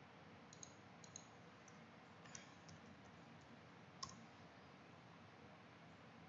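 Near silence with a few faint clicks of a computer mouse and keyboard, spread over the first four seconds, the loudest about four seconds in, over a low steady hiss.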